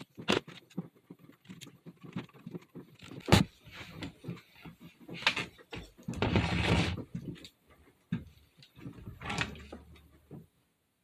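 Irregular clicks, taps and scraping of small hand tools and a circuit board being handled on a workbench, with one sharp click about three seconds in and a longer stretch of scraping and rustling a little past the middle.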